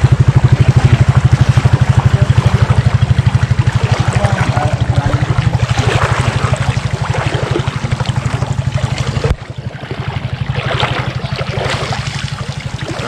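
A small boat engine running with a fast, even putter, mixed with water splashing and trickling. The engine cuts off abruptly about nine seconds in, leaving only the splashing of water.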